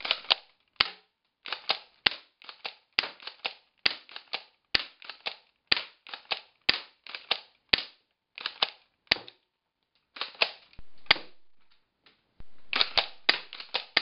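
Airsoft shotgun firing over and over: sharp snapping shots, many in quick pairs, coming about every half second, with two short pauses a little past the middle.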